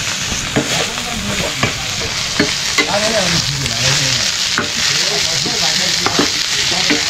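Chopped greens sizzling as they stir-fry in a pan, stirred with a metal ladle that scrapes and taps against the pan many times.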